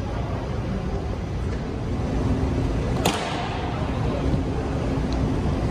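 Steady room ambience of a large, nearly empty airport terminal hall: a low rumble and hiss, joined by a faint steady hum about two seconds in. About three seconds in comes one short, sharp swish.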